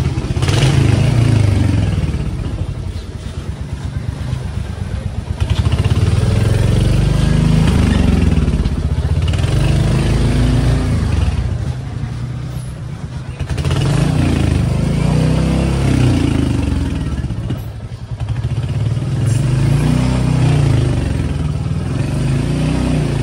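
Small motorcycle engine heard from the pillion seat, running under throttle. Its pitch and loudness rise and fall several times as it speeds up and eases off.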